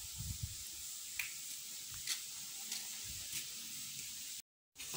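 Quiet outdoor background: a steady hiss with irregular low rumbles of wind on the microphone, and a few faint light taps, roughly one a second.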